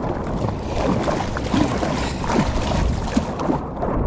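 Choppy sea water splashing and washing around a rubber inner-tube float, mixed with wind noise on the microphone.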